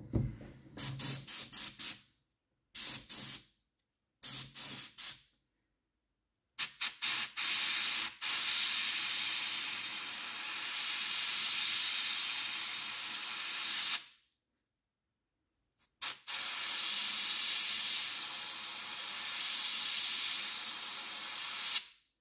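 Airbrush spraying paint in a light coat on the rim of lure eyes: a series of short hissing spurts, then two long steady hisses of several seconds each with a brief pause between.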